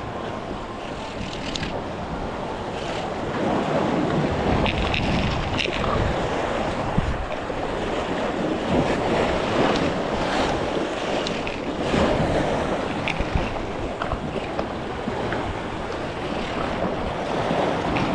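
Surf washing against jetty rocks, with wind buffeting the microphone: a steady, noisy rush.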